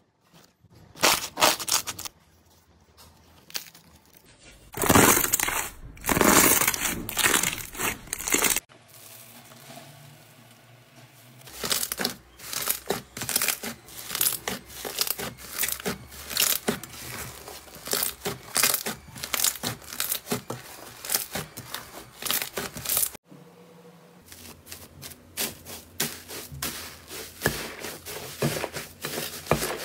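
Hands squishing, stretching and pressing slime, with rapid sticky crackling clicks and pops as air pockets burst, in several stretches with short louder squelches.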